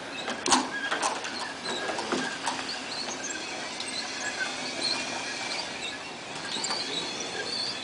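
Small tracked robot driving over a plywood board: high-pitched squeaks and a thin whine from its drive motors and tracks, with a few sharp clicks in the first few seconds, the loudest about half a second in.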